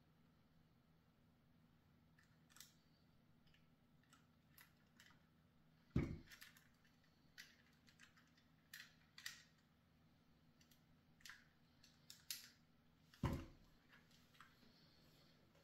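Small plastic model parts and lighting-wire connectors being handled: sparse light clicks and ticks, with two louder knocks about six and thirteen seconds in.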